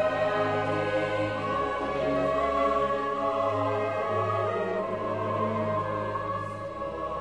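Background music: a choir with orchestra in classical sacred music, held chords over a bass line that steps to a new note about once a second.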